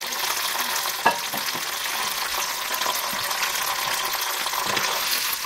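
Hot castor oil sizzling and crackling in a glass bowl around fried avocado seed pieces and freshly added aloe vera gel, with one sharper pop about a second in.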